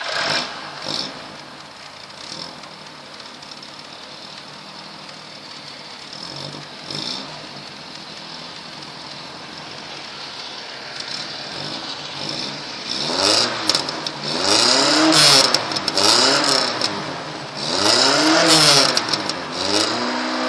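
Polski Fiat 125p's 1500 four-cylinder engine, just caught, idling steadily and then revved about five times in the second half, each rev rising and falling in pitch. The exhaust note is louder and rougher from a partly rusted-through rear silencer.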